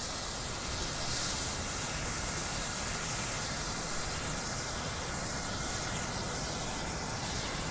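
Red Ultralux Breslauer Feuer, a magnesium Bengal flare, burning with a steady hiss.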